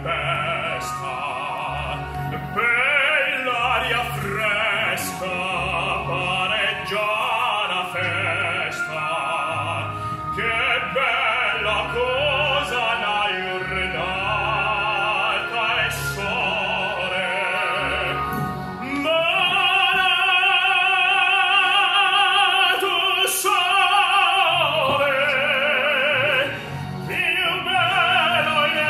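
A man singing an operatic solo in full classical voice with strong vibrato. About two-thirds of the way through he holds a long high note, the loudest part.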